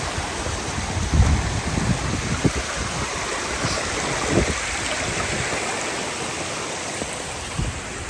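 Steady rush of a mountain stream running over rocks, with a few low thuds of shoes stepping on wet stones.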